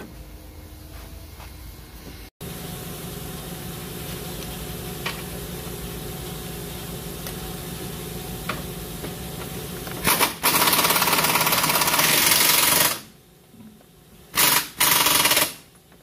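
Air-powered impact wrench working a bolt on a car's front lower control arm mount: the wrench hammers loudly for about three seconds, then gives two short bursts near the end. A steady machine hum comes before it.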